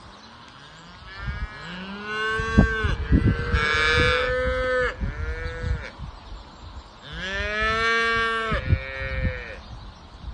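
Several calves mooing, overlapping drawn-out calls in two bouts, the second starting about seven seconds in.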